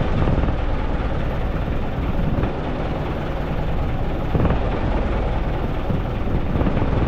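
Outrigger fishing boat's engine running steadily under a continuous rushing noise.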